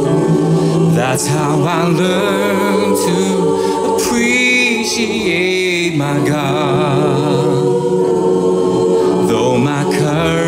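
A recorded song: a choir sings long held notes with vibrato in a gospel style, over a steady instrumental backing.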